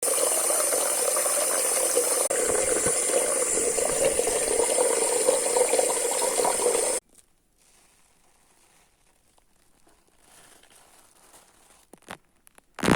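Water running hard in a bathroom, a steady rush that is shut off abruptly about seven seconds in. A few faint clicks follow in the quiet.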